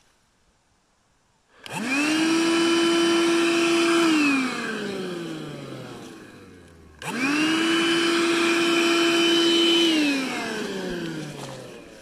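18-volt battery-powered vacuum cleaner switched on twice in short bursts. Each time its motor spins up quickly to a steady whine, runs for about two seconds, then winds down with falling pitch once it is switched off.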